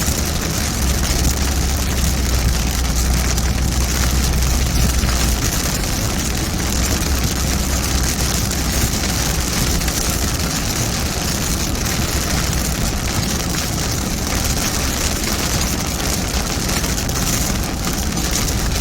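Car driving in heavy rain: a steady hiss of rain over the low rumble of the engine and tyres on the wet road, the rumble heavier for the first few seconds.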